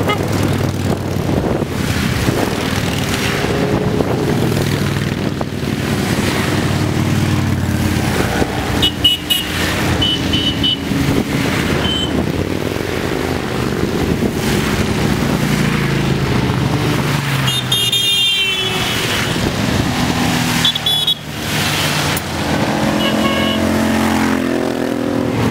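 A procession of motorcycles, cruisers and sport bikes, riding past one after another, their engines swelling and fading as each bike goes by. Short high horn toots sound about nine to eleven seconds in and again around eighteen seconds.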